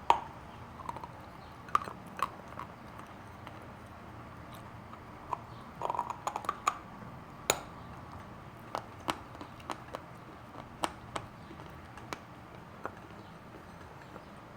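Khrapovsky chalk being bitten and chewed: sharp, dry crunches at irregular intervals, with a quick run of them about six seconds in.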